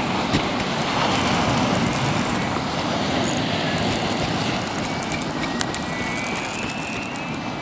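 Steady rush of sea surf breaking on a boulder shore, with faint high ticks and a thin high whistle near the end.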